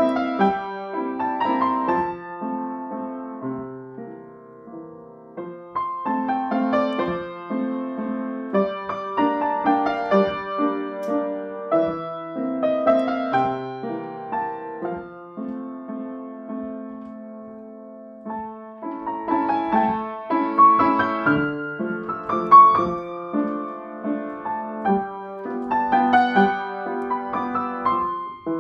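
Piano played by hand: a gentle waltz tune of melody over chords, going quieter twice, about four seconds in and again around the middle.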